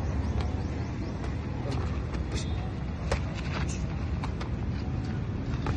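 Boxing sparring: irregular sharp slaps and scuffs from gloved punches and footwork on dirt, over a steady low rumble.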